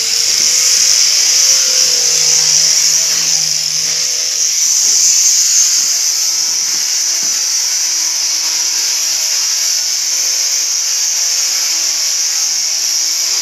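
A handheld electric power tool running steadily with a high whine.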